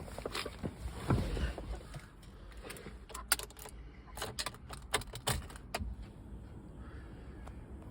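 Car keys jangling, with a run of sharp metallic clinks about halfway through, as the key is handled before the engine is started.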